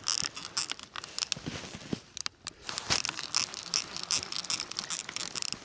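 Irregular clicks and crinkly scratching from rod, reel and line being handled while a hooked blue catfish is reeled in.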